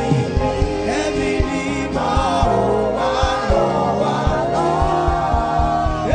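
Gospel worship song: a singing voice over a band with drums.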